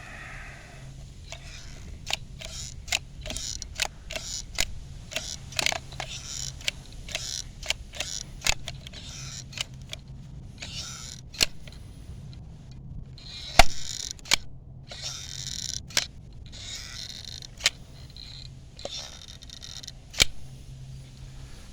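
Hand-held caulking gun being worked around a newly set window to seal it: irregular sharp clicks of the trigger and plunger, with short hissing strokes as the bead is laid. The loudest click comes about halfway through.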